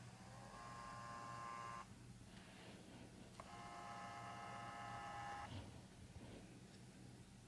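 Canon PowerShot SX710 HS lens zoom motor whirring twice: a steady whine of about a second and a half, then another of about two seconds. This is the camera's normal, fault-free zoom noise.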